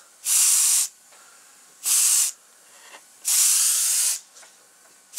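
Airbrush spraying a light coat of paint in short on-off bursts of hissing air, three in a row with a fourth starting at the end.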